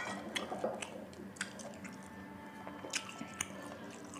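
A man chewing a mouthful of fried chicken and rice close to the microphone: soft wet chewing with scattered small clicks.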